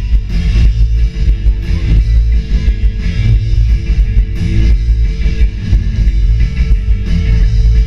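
Live rock band playing loudly, electric guitar to the fore over heavy bass and drums.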